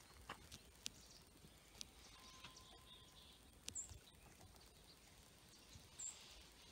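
Near silence: faint outdoor ambience with a few soft clicks and two brief high chirps, about two seconds apart.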